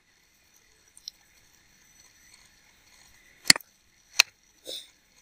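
Computer mouse clicking: a faint tick about a second in, then two sharp clicks about two-thirds of a second apart.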